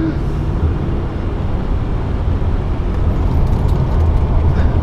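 1980s Aston Martin V8's 5.3-litre V8 engine running steadily on the move, heard from inside the cabin, growing slightly louder near the end.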